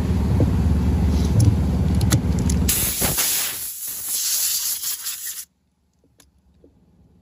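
Compressed-air blow gun blowing sanding dust off an alloy wheel: a loud hiss that starts just under three seconds in and cuts off abruptly about two and a half seconds later. Before it, a low steady hum.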